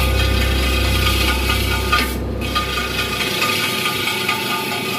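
Wheel-repair lathe spinning an alloy car rim, with a gloved hand tool rubbing against the rim's lip as the torn rim is worked on. The steady low motor hum drops away about two-thirds of the way through.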